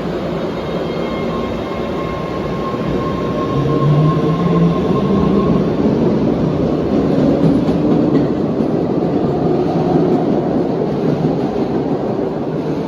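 MBTA train running on the rails: a steady rumble with a faint whine, growing louder about four seconds in and easing off near the end.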